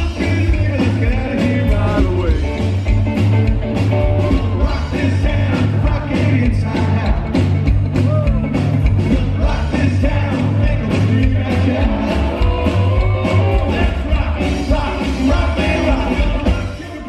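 Live rockabilly trio playing loudly: electric guitar, upright bass and drums, with a man singing lead, recorded from the audience.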